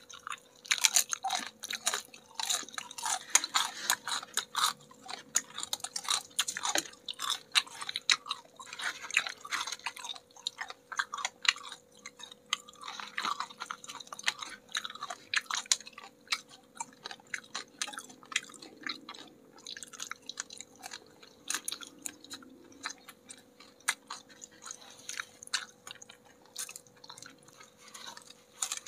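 Close-up crunching and chewing of crispy battered fried chicken wings: dense crackling bites, busiest in the first half and sparser later on.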